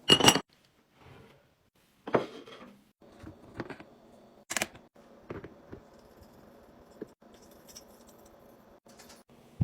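Containers and food items being handled and set down while a refrigerator is being organised: a series of separate clicks and knocks, the loudest at the very start, over a faint steady hum.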